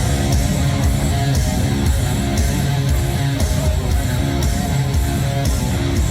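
Loud heavy rock music with electric guitar and a steady beat.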